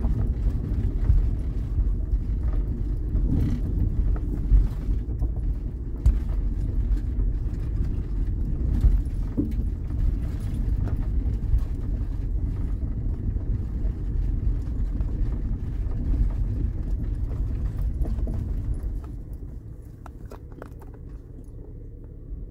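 Minivan driving slowly on a gravel dirt road, heard from inside the cabin: a steady low rumble of engine and tyres, with many small clicks of gravel under the tyres. It turns clearly quieter near the end as the van slows.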